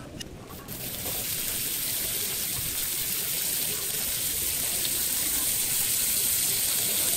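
Brown sauce sizzling on a hot iron sizzle plate: a steady hiss that sets in about a second in and grows slightly louder.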